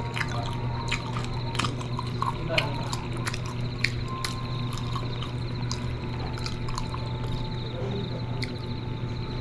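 Close-up wet chewing and mouth sounds of someone eating siomai dumplings with chilli sauce, with many scattered sharp clicks over a steady low hum.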